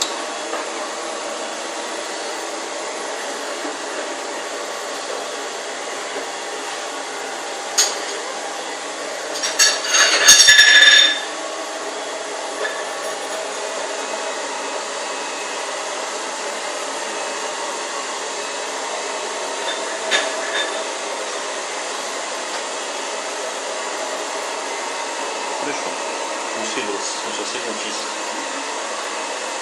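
Vacuum cleaner running steadily, with a brief loud clatter with a ringing edge about ten seconds in.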